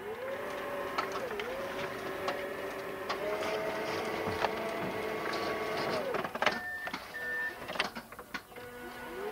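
A stuck forklift's motor whining up in pitch, held for about six seconds and then winding down, as the driver tries to drive it free in snow; it whines up again near the end, with clicks and knocks from the machine over it.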